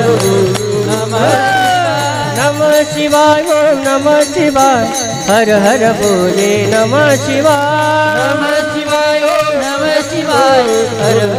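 Marathi devotional bhajan music: a singer's long, wavering melodic phrases over a steady low drone, with small hand cymbals (taal) ticking the beat.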